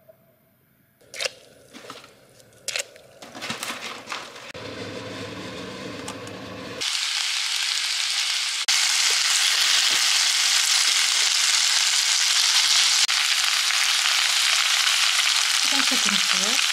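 Pesto-coated spinach fettuccine frying in a pan: a few sharp clicks of handling, then a sizzle that builds and becomes loud and steady about seven seconds in.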